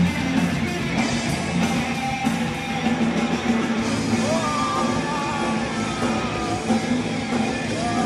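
Heavy metal band playing live and loud through a festival PA: distorted guitars, bass and drums as one dense wall of sound, with the full band coming in at the start.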